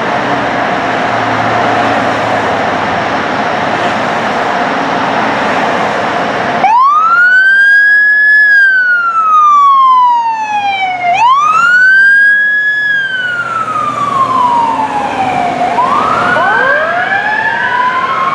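Steady engine noise, then about seven seconds in, a 2021 Pierce Velocity fire engine's electronic siren starts a wail. Each cycle rises fast and falls slowly, twice, and near the end a second wail overlaps it out of step.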